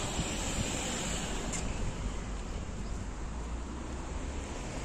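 Steady rushing outdoor noise of wind on the microphone and street traffic, with one sharp click about a second and a half in.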